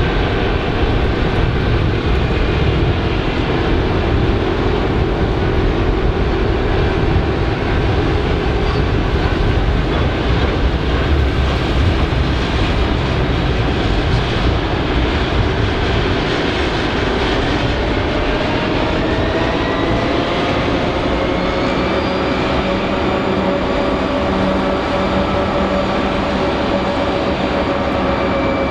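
Two QUBE VL-class diesel-electric locomotives (VL360 and VL356) hauling a long steel freight train at speed, with a steady low rumble. About two-thirds through, a rising whine comes in and then holds at a steady pitch.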